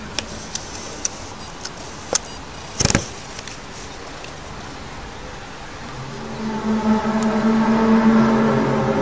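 Loud droning hum of several steady tones that swells up about six seconds in, over a steady background rumble; a few sharp clicks and a louder knock come before it, in the first three seconds.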